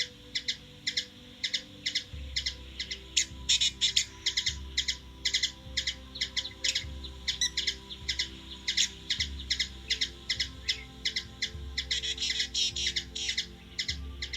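Hummingbird giving a steady run of short, sharp chip notes, about two to three a second. A low rumble comes and goes underneath from about two seconds in.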